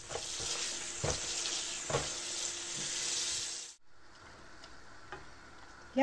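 Hot water hissing in a stainless steel pot on the stove as dock leaves are blanched and turned with a wooden spoon, with a couple of soft knocks. The hiss drops off suddenly a little before four seconds in and carries on more faintly.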